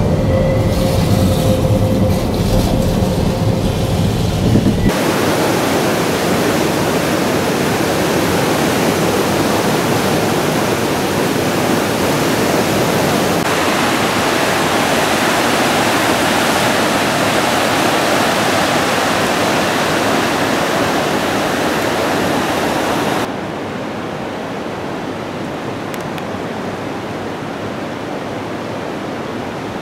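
A low vehicle rumble with a faint steady hum, then, from about five seconds in, a loud steady rush of flowing water. The rush changes abruptly twice and is quieter over the last several seconds.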